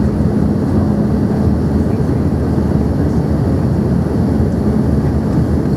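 Steady cabin noise of an Embraer ERJ-145XR regional jet on final approach: engine and airflow noise as an even roar, with a steady low hum.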